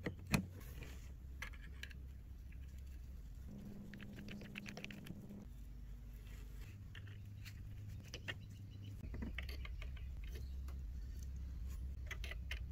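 Small clicks and rattles of plastic and metal parts handled with gloved hands as 3D-printed bolt extenders are fitted to a laser module's mounting plate, with one sharp click just after the start, over a low steady hum.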